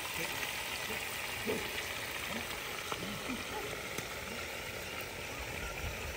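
Fish pieces deep-frying in a wide pan of bubbling oil: a steady sizzle.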